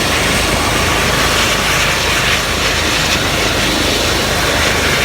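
Airbus EC135 twin-turbine helicopter running at close range: a loud, steady rush of turbine and rotor noise with a regular low chop from the rotor blades.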